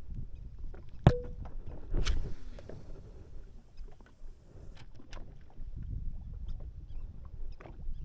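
Small boat drifting with its engine off: a steady low rumble of water and wind against the hull. A sharp knock with a short ring comes about a second in, and a high hiss runs from about two seconds in to nearly five seconds.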